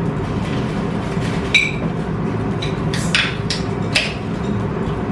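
Cutlery and dishes clinking and knocking at a dinner table: one ringing clink about a second and a half in, then a quick cluster of knocks a little after three seconds.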